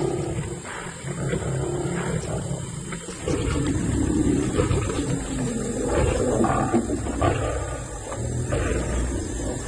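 Lions growling and snarling together as the pride pulls down and kills a buffalo, in a continuous rough, rising and falling din.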